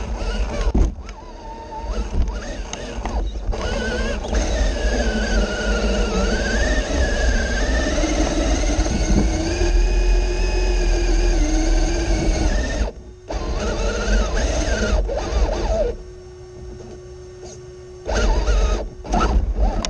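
Electric drivetrain of an Axial SCX6 RC rock crawler heard from its onboard camera: motor and gear whine rising and falling with the throttle over a low rumble from the chassis on rock. It stops briefly about two-thirds through and again for about two seconds near the end.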